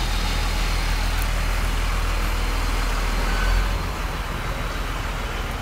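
Dump truck's engine idling: a steady low rumble that drops off about four seconds in.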